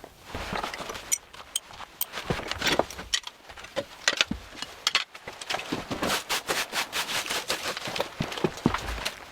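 Irregular clicks and knocks with rustling, growing busier in the second half.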